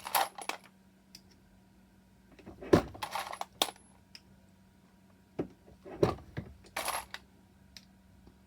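Metallic clinking of 9mm brass cases being worked through a bulge-buster resizing die, in three clusters of clinks about three seconds apart.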